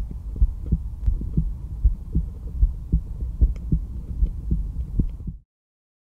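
Heartbeat heard through a stethoscope: steady pairs of low lub-dub thumps, a little faster than one beat a second, cutting off suddenly near the end.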